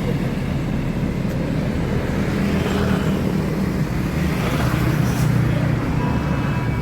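Diesel engine of a tour bus running close by, a deep steady rumble that swells a little past the middle. Near the end, faint steady horn tones begin: the start of the bus's melodic telolet horn.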